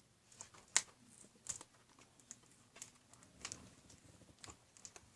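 Faint, irregular clicks and taps of hands working at a taped toy box to get it open, with one sharper click about a second in.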